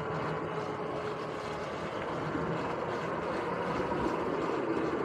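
Sur-Ron X electric dirt bike riding along, its motor and chain drive giving a steady whine over tyre rumble on the planks of a wooden boardwalk bridge.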